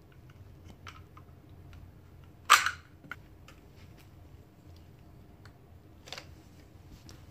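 Chunky plastic toy building blocks clacking: one loud, sharp knock about two and a half seconds in, with a few lighter clicks around it.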